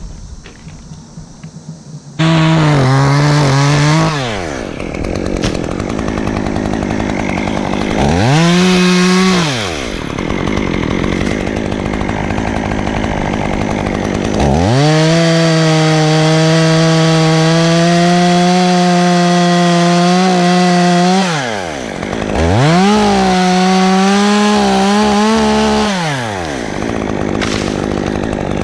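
Stihl top-handle two-stroke chainsaw cutting locust wood at full throttle. It comes in abruptly about two seconds in, and its pitch falls off toward idle and climbs back to full revs several times between cuts.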